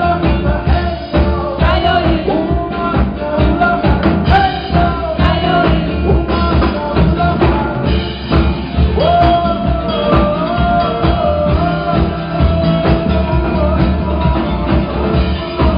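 A rock band playing live, with a singing voice over a steady drum beat, bass and guitar; a long wavering note is held from about halfway through.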